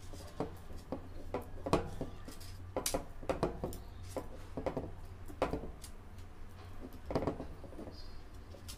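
Irregular light clicks and taps of hands handling a plastic quadcopter frame and its wiring while fitting the flight controller onto the centre plate, over a steady low hum.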